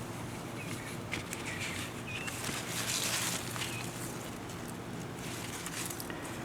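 Outdoor backyard ambience: a steady low hum with a few faint bird chirps, and a soft hiss that swells and fades about three seconds in.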